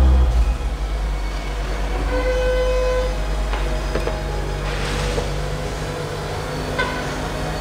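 2020 Audi RS4's twin-turbo V6 running at idle as the car creeps slowly forward, a steady low rumble. A short pitched tone sounds about two seconds in, and a briefer one near the end.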